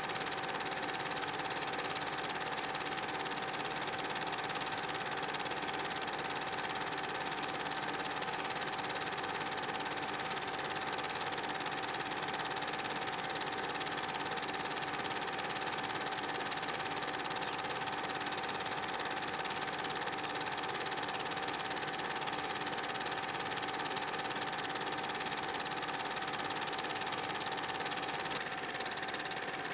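8mm film projector running: a steady mechanical whir with a constant whine that does not change as the scenes cut.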